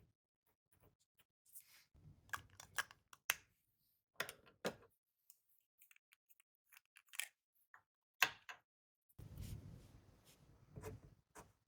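Small objects handled on a desk: scattered sharp clicks and taps, with stretches of rustling and rubbing about two seconds in and again from about nine seconds in.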